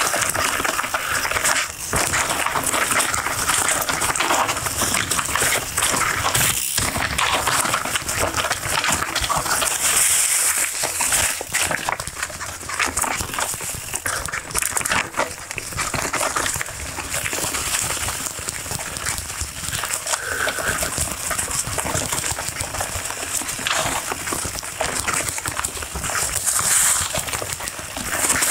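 Full-suspension mountain bike on knobby Maxxis Minion DHF tyres riding fast along a dirt trail covered in dry leaves: a steady rush of tyres crunching through leaves, with many rattles and knocks from the bike over bumps.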